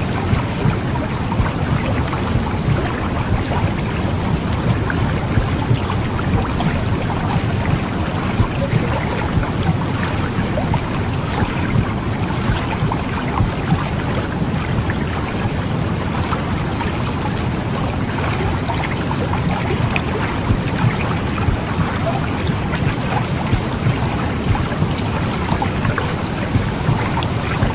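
Recorded womb sound for soothing a baby: a steady, low rumbling noise with a fine crackle.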